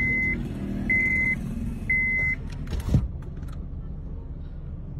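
An electronic alarm beeping, steady high beeps about once a second that stop about two and a half seconds in, then one sharp bang, the loudest sound, under a low vehicle rumble.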